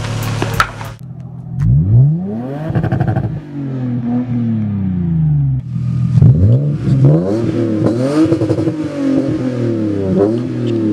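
Lexus GS300 engine revved up and down several times through a new stainless steel downpipe and muffler-deleted exhaust, which has a lot more tone to it.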